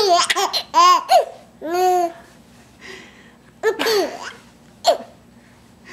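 Three-month-old baby laughing: high-pitched laughs in short bursts with brief pauses between them, and a longer lull about three seconds in.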